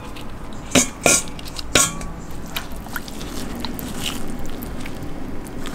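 Wet handling of raw mackerel pieces as they are moved from a metal colander into a glass bowl of flour water and pressed under. There are a few sharp splashes and clicks in the first two seconds, then softer wet squelching and small clicks.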